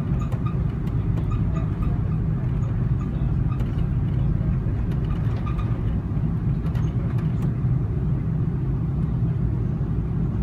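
Cabin noise of an Airbus A330-200 taxiing: the engines at idle give a steady low rumble, with a few faint clicks and rattles.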